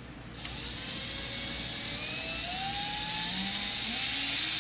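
Electric drill spinning a speedometer cable that drives a rebuilt C3 Corvette speedometer on the bench. The motor whine starts about half a second in and rises steadily in pitch as the drill speeds up, levelling off near top speed at the end. This is a bench test of the cleaned and freshly lubricated speedometer.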